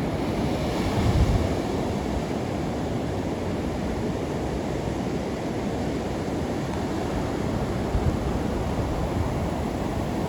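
Sea surf washing on the beach with wind buffeting the microphone, a steady rushing noise with stronger gusts about a second in and again near the end.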